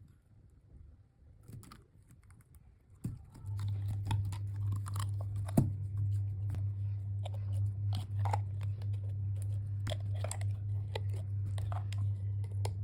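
Slime being squeezed and pressed by hand, making irregular sticky clicks and crackles that grow dense about three seconds in. A steady low hum sits under them from then on.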